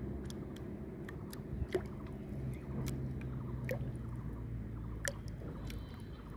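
Shallow water sloshing and lapping around a floating plastic bottle trap as it bobs and tips, with a few small splashes and drip-like plinks over a low, steady hum.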